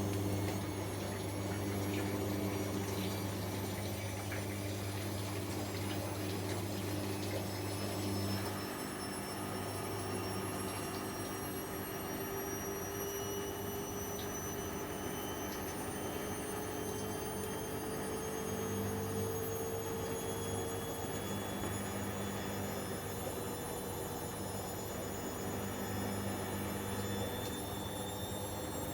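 Bosch Avantixx 7 front-loading washing machine running: a steady low hum that briefly drops out a few times, under a faint motor whine that slowly rises in pitch as the drum speeds up.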